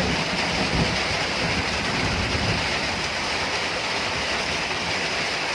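Steady rushing of flowing water, with an uneven low rumble underneath during the first few seconds.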